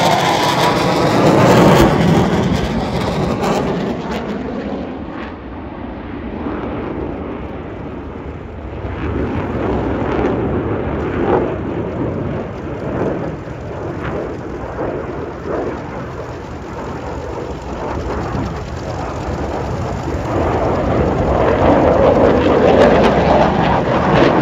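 Jet noise from a pair of Dassault Rafale fighters flying overhead, their twin M88 turbofans giving a continuous rushing roar. It eases off a little about five seconds in and builds up louder again toward the end.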